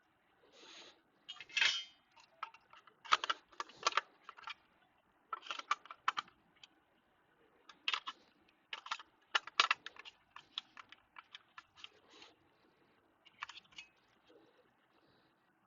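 Irregular light clicks and taps of small hard objects, some coming in quick clusters.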